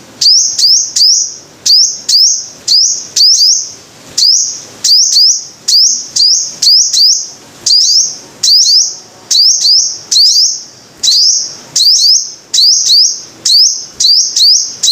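Sunbird calling: loud, sharp, high chirps that each sweep upward. They come in quick clusters of two or three and repeat steadily, about two calls a second.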